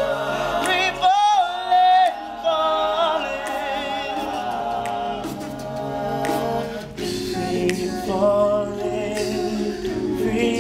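All-male a cappella group singing: a male lead voice with a wavering vibrato over sustained backing harmonies and a low bass line.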